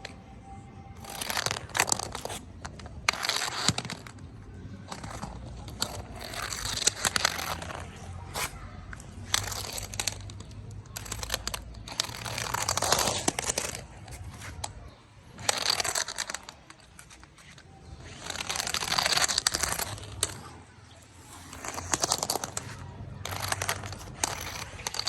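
Cats playing with an interactive toy ball: a dozen or so short scraping, rustling bursts, each about a second long, come and go every second or two.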